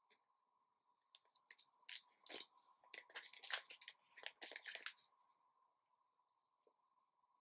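Faint crinkling and crackling of a clear plastic bag around a magnetic card holder as it is handled and turned over. A run of short crackles starts about a second in and stops about five seconds in, over a faint steady hum.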